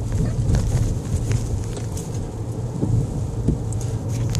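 Steady low rumble of a car driving in the rain, heard from inside the cabin.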